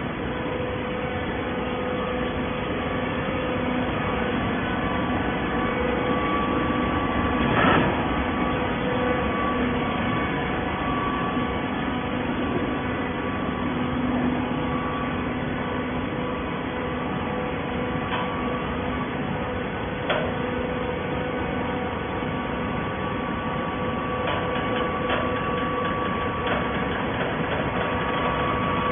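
Plastic-bottle baling machine running, a steady machine hum at a few fixed pitches, with an occasional single knock, one about eight seconds in and another near twenty seconds.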